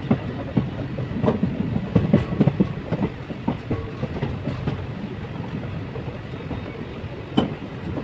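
Passenger train running on the track: a steady rumble with irregular clacks and knocks from the wheels, thickest in the first few seconds, and one sharp knock near the end.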